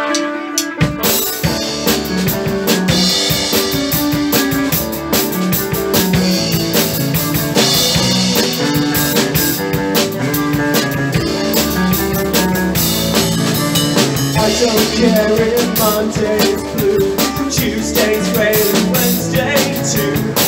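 Rock band playing with drum kit, bass guitar and guitar over a steady beat, the full band coming in just under a second in.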